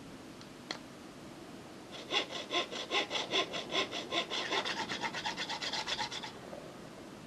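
Hacksaw cutting a small piece of red plastic with quick, even strokes, about five a second, starting about two seconds in and stopping about a second before the end. A single sharp click comes just under a second in.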